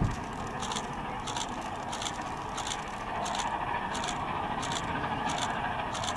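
Two Great Western 4-6-0 steam locomotives, a Hall and a Castle, heard from afar hauling a passenger train: a steady roar with a regular exhaust beat about every two-thirds of a second.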